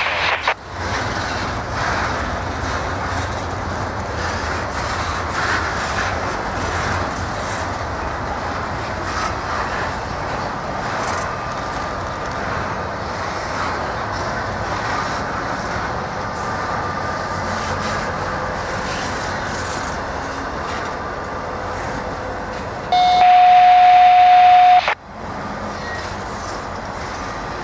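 Intermodal freight train rolling past: the steady rumble and rattle of double-stack container cars and trailer-carrying flatcars on the rails. Near the end, a loud steady tone sounds for about two seconds and cuts off abruptly.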